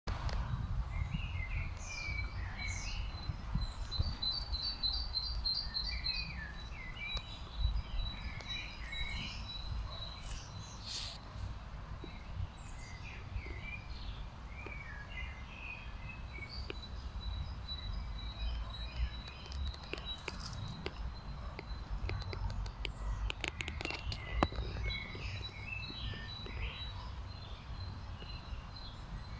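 Mixed songbird chorus in park trees: many different birds chirping and singing short phrases, with a fast run of repeated high notes about four seconds in.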